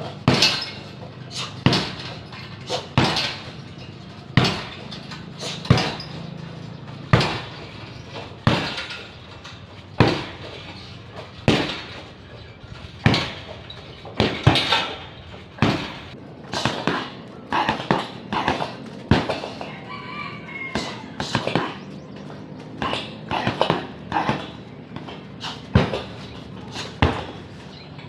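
Repeated kicks smacking a hanging heavy bag, one about every second and a half, then quicker flurries of two or three strikes. A rooster crows once about twenty seconds in.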